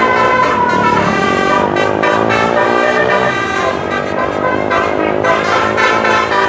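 An 18-note telolet bus horn playing a melody of held, horn-like notes that shift in pitch every second or two, some sliding, over a low engine rumble.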